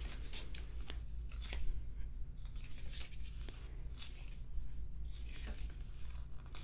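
Pages of an album photo book being turned and handled: soft, scattered paper rustles and swishes over a low steady hum.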